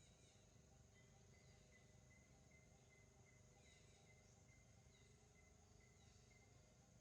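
Near silence: faint forest ambience, with a steady high insect drone and soft, evenly repeated bird chirps.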